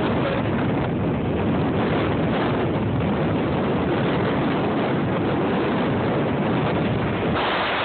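Strong hurricane wind blowing over a phone's microphone: a loud, steady rush of noise, turning hissier near the end.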